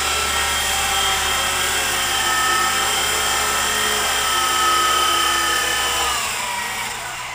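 E-flite Blade SR120 micro electric RC helicopter hovering: a steady high whine of its electric motors and spinning rotors. About six seconds in, the pitch slides down and the sound eases off as it sets down on the table and throttles back.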